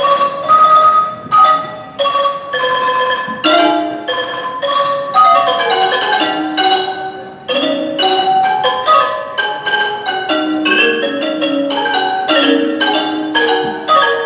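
Ranat ek, the Thai boat-shaped xylophone, played solo with two mallets. Quick runs and repeated notes on its wooden bars each ring briefly in a flowing Thai classical melody, in the opening phrases of the piece.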